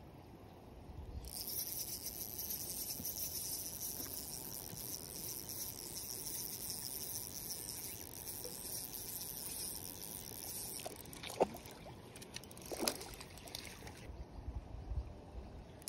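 Small spinning reel being cranked during the retrieve of a hooked trout, a steady high whirr starting about a second in and stopping about eleven seconds in. It is followed by a few sharp splashes and knocks as the fish thrashes at the surface.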